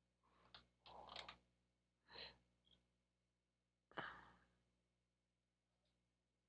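Near silence, broken by a few faint breaths and a sigh about four seconds in.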